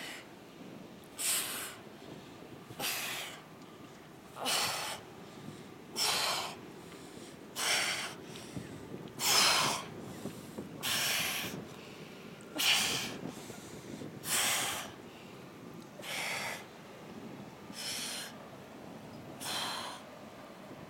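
A woman exhaling hard with each abdominal crunch: twelve sharp, breathy puffs of breath in an even rhythm, about one every second and a half.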